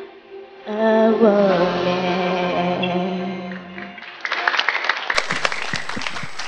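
A woman singing into a microphone, holding long notes with gliding pitch, ends her song about four seconds in. Clapping and applause follow.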